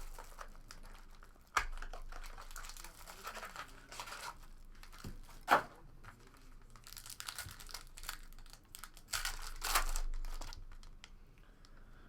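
Foil trading-card packs being torn open and crinkled by hand, in irregular rustles with a few sharp rips.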